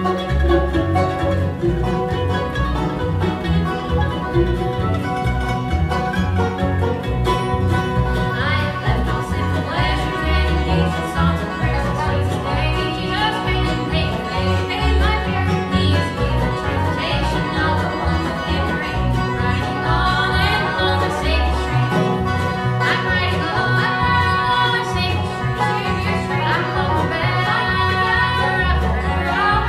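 Bluegrass band playing a gospel song: mandolin, acoustic guitar, banjo and upright bass with a steady bass beat, and two women's voices singing in close twin harmony.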